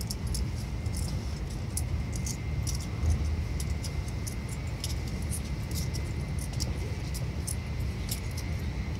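Steady low rumble inside a running Shinkansen carriage, with a faint steady high whine and scattered small clicks and ticks.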